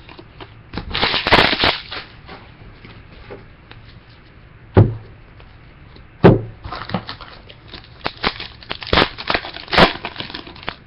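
A 2013 Prestige Football card pack's foil wrapper crinkling and tearing open, with cards handled, and two sharp knocks about a second and a half apart midway through.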